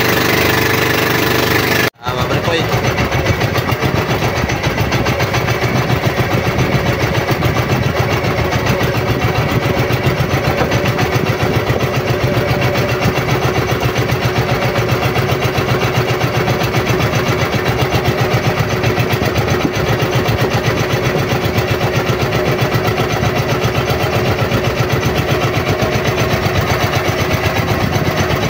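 Intro music for about two seconds, then a cut to an outrigger fishing boat's engine running steadily under way, a fast, even chugging that goes on unchanged.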